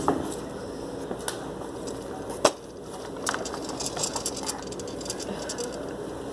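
Room tone with scattered light clicks and knocks. One sharp knock comes about two and a half seconds in, followed by a quick run of small clicks.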